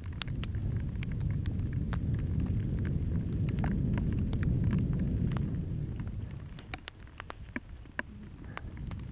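Mountain bike riding down a rough trail: wind rushing over the microphone and the tyres rolling, with many scattered clicks and rattles from the bike and the trail surface. The rush swells about a second in and eases about two-thirds of the way through.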